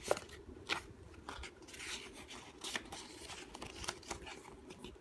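The cover and pages of a thin paperback picture book being flipped open and handled: a string of short papery rustles and snaps.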